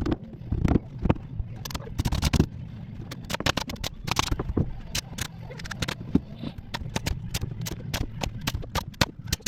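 Framing nailer driving nails into a stud wall: a long, irregular run of sharp shots, often several a second with short pauses between bursts.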